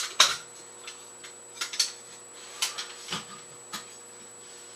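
Sharp clicks and knocks as a crossbow pistol's bow limb and mounting parts are handled and fitted to the stock by hand: two at the start, the second the loudest, then a scattered handful up to about four seconds in.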